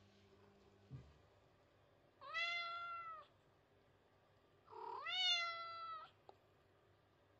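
Munchkin cat meowing twice, two drawn-out meows a couple of seconds apart, the second slightly longer and louder. They are attention-seeking meows, the cat asking to be fussed over.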